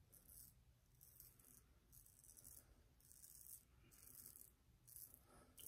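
Faint scratching of a Focus R28 aluminium shavette blade cutting through lathered beard stubble, in short repeated strokes about one a second.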